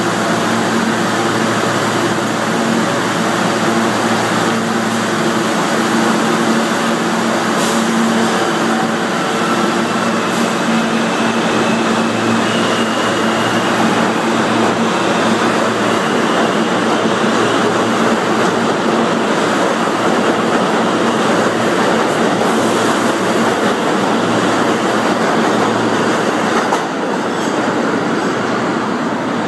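New York City Subway F train pulling out of an underground station: a loud, steady rumble of wheels and motors as the cars pass close by, with a faint high whine stepping up in pitch as the train gathers speed.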